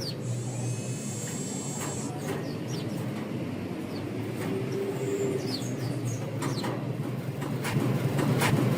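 Small birds chirping in short, high notes, with a high trill in the first two seconds, over a steady low rumble of urban background noise.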